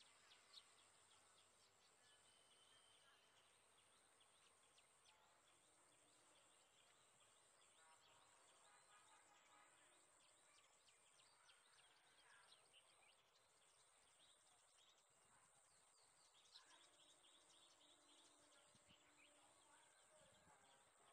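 Very faint outdoor nature ambience: many short bird chirps and twitters scattered throughout, over a steady thin high tone.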